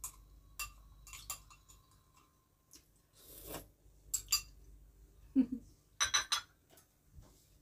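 A spoon clinking and tapping against a glass bowl while eating, in scattered single clicks, then a quick cluster of louder clinks about six seconds in as the bowl is put down.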